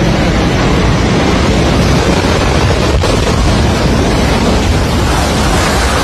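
Rockslide thundering down a mountainside: a loud, continuous, deep rumble of falling rock and debris that cuts off suddenly near the end.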